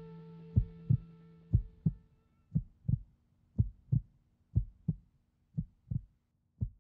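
Heartbeat sound effect: low thumps in lub-dub pairs about once a second, over the last ring of an electric guitar chord fading away.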